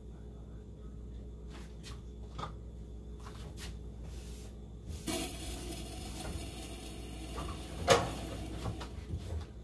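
Kitchen handling noises: faint clicks, then from about five seconds in a rustling clatter of cookware and utensils with one sharp knock just before eight seconds.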